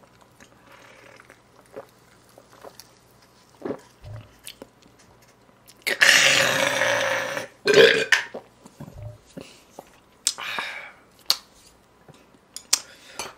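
A man belches loudly and roughly for over a second, about six seconds in, right after a swallow of drink, with a shorter burst just before the eight-second mark. Small mouth and tabletop clicks come before and after.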